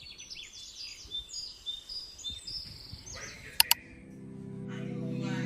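Small birds chirping in rapid, quick-gliding calls, followed by a sharp double click a little past the middle. Music with held notes fades in near the end.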